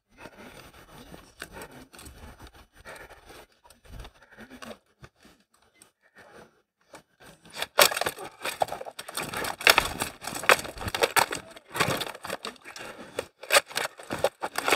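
Rattan weapons clashing and striking armour in armoured combat: a fast flurry of sharp wooden cracks and knocks that starts about halfway through, after a few seconds of faint, scattered sound.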